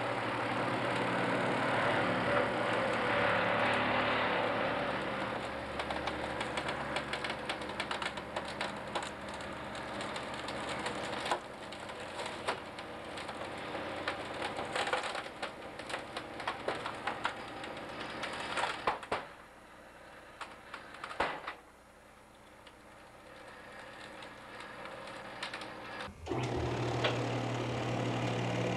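A test rig's motor runs under load, pulling against a Cascade Toboggan Model 200 rescue toboggan. Its shell and frame crackle and creak continually as they deform, with loud cracks about 11, 19 and 21 seconds in as the toboggan gives way. The rig noise falls away after about 19 seconds, and a steady low hum starts shortly before the end.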